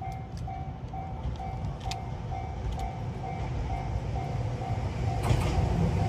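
Level-crossing warning bell ringing steadily at about two strikes a second, while an approaching Shintetsu electric train's rumble grows steadily louder. Sharp clicks from the wheels start about five seconds in as the train draws near.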